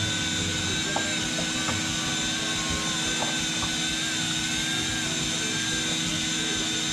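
Boat engine running steadily: a constant drone with a high, slightly wavering whine over it and a few faint clicks.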